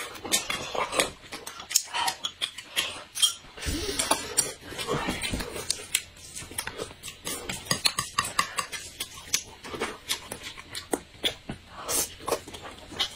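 Eating sounds: crayfish shells cracking as they are peeled by hand, utensils clicking against plates and a glass, and chewing and slurping of noodles, a continuous run of sharp clicks and smacks.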